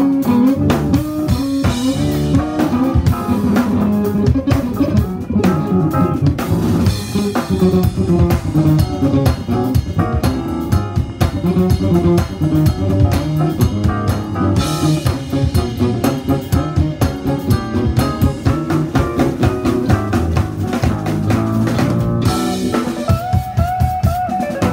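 Live jazz-fusion band playing: electric bass lines with a full drum kit driving underneath, and a held note near the end.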